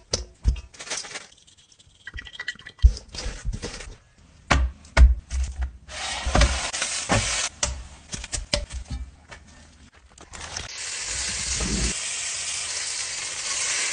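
A run of sharp taps, knocks and mixing sounds from food preparation. About ten seconds in, a steady sizzle starts as raw ground beef cooks in a hot frying pan.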